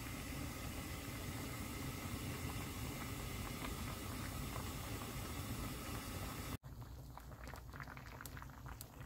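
Doenjang jjigae bubbling at a rolling boil in an earthenware ttukbaegi pot: a steady bubbling, then after a sudden cut about two-thirds of the way through, quieter with many scattered bubble pops.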